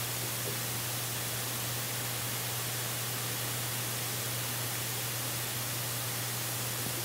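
Steady, even hiss with a constant low hum underneath, the noise of the nest cam's audio feed; no eagle calls.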